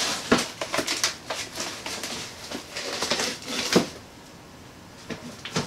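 Foam packing sheets and cardboard being handled and shifted inside a shipping box: a busy run of short scrapes, rustles and taps for about four seconds, then quieter, with two sharp clicks near the end.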